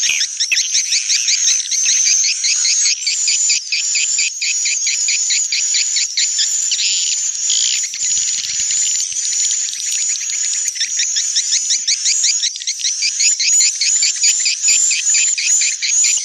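Swiftlet lure playback for a swiftlet house: a stereo mix of a calling track and a roosting ('inap') call track, heard as a continuous fast twittering of high chirps, several a second.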